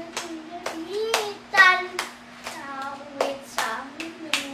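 A child's hand claps, about two sharp claps a second, over the child's singing of a Visayan Christmas song.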